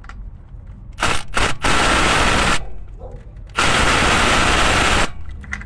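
Cordless impact wrench hammering on engine bolts. It gives a few short bursts, then two longer runs, as it undoes the bolts holding the coolant connecting pipe.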